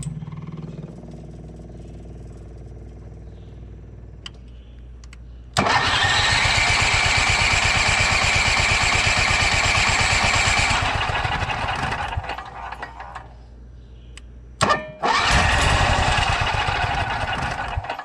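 Onan OHV generator engine turning over on its starter twice, for about five seconds and then, after a click about fifteen seconds in, for about three seconds. Each try dies away without the engine keeping running, which the owner takes for a flooded engine. A low hum comes before the first try.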